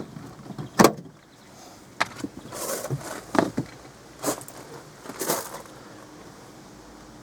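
Sharp clicks, knocks and short scrapes of screwdrivers working on a car's plastic door trim panel to free its screws and clips, the loudest knock about a second in. The knocks stop after about six seconds, leaving a faint steady hum.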